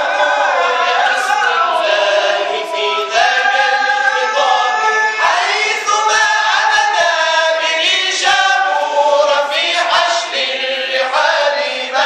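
Group of men singing a tawashih, an unaccompanied Islamic devotional chant, together in long held notes.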